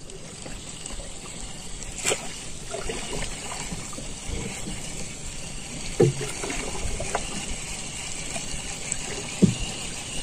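Water trickling and lapping against a small wooden canoe's hull, with a few soft knocks and clicks on the boat and tackle, while a spinning reel is wound in.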